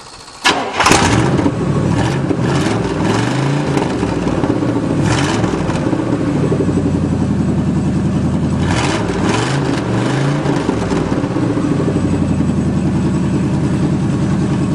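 A 1977 GMC pickup's gasoline engine fires about half a second in on a freshly rebuilt carburetor and keeps running. Its revs rise and fall twice before it settles into a steady run.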